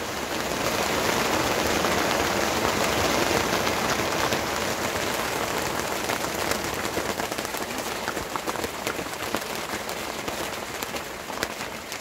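Heavy rain mixed with a little hail pelting a yacht's canvas bimini and deck, a dense hiss shot through with sharp individual hits. It builds about a second in and eases off gradually over the last few seconds.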